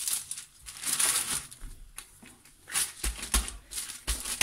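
Hands scraping together and pressing dough scraps on floured baking paper, the paper rustling and crinkling. A run of short soft taps and rustles comes in the last second and a half.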